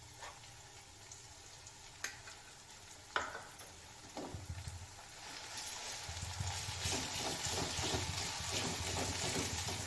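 Ground masala frying in hot oil with onions in a brass kadhai. The first part is quiet apart from a few light clicks; from about halfway the sizzling builds and grows louder as the masala is stirred and scraped with a metal slotted spoon.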